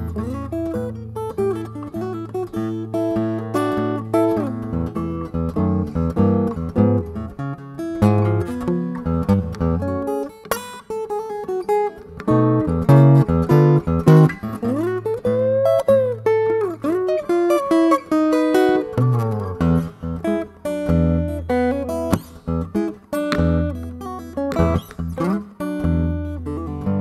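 Takamine acoustic guitar played fingerstyle in a blues instrumental passage: a steady picked bass line under melody notes, with string bends about two-thirds of the way through.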